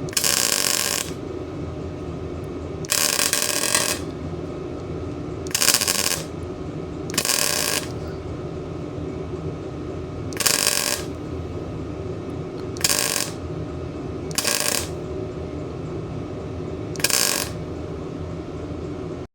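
MIG welder laying short stitch welds: eight bursts of arc crackle, each about half a second to a second long, filling a quarter-inch gap. A steady machine hum runs underneath.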